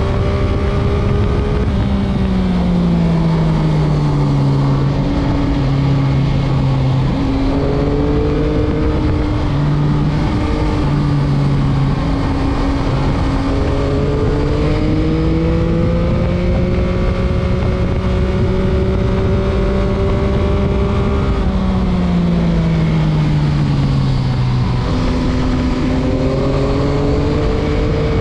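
Stock 2021 Yamaha MT-09's 890 cc inline-three engine running under way, heard from the rider's chest with wind rushing on the microphone. The engine note falls off about two seconds in and again about 21 seconds in, and climbs slowly about 13 seconds in, as the throttle opens and closes through corners.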